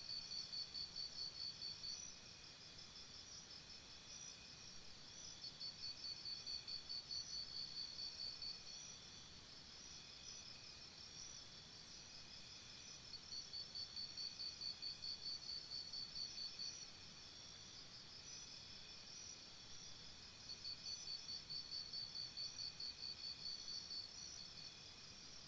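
Faint crickets chirping in rhythmic trills. A fast pulsed trill lasts about two to three seconds, stops, and returns every few seconds over a steady high background of other insects.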